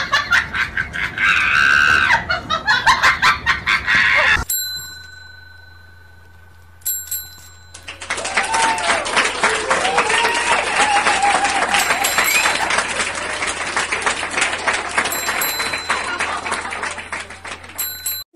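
Small metal desk bell rung by a pug pressing it with its paw: clear dings that ring on, the first about four seconds in, among a dense, busy mix of other sound.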